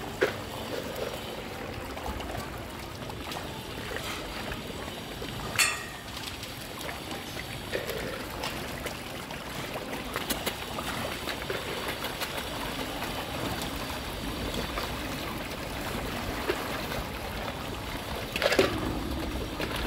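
Water splashing and churning as a swarm of black ear catfish feeds at the surface. Three brief louder sounds stand out: one near the start, one about six seconds in, and one near the end.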